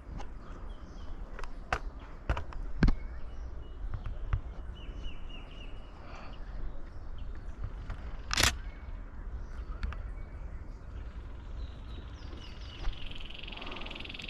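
Outdoor morning ambience with birds chirping now and then. A buzzy, rapidly repeated trill starts near the end. Scattered sharp clicks and knocks, with one louder burst about two thirds of the way through.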